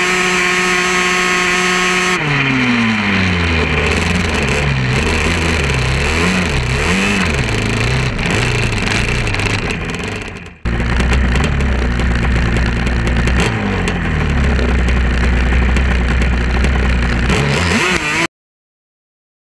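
Off-road vehicle engine at high revs: held steady at first, then revs falling and climbing again and again as the throttle is worked. The sound breaks off for an instant about halfway through, carries on, and stops abruptly near the end.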